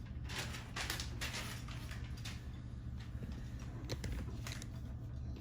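Rustling and handling noises as a gift wallet is opened, with a few short clicks, over a steady low hum.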